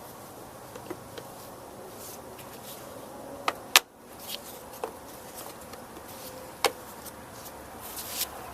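Handling clicks and knocks from working on a push mower's air filter and its cover: a few light taps early, a sharp knock about four seconds in, another a little before seven seconds, and a couple near the end. A faint steady hum runs underneath.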